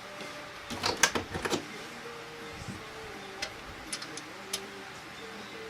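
Workshop handling noise: a quick run of clinks and knocks about a second in, then a few single light clicks, over a faint steady hum.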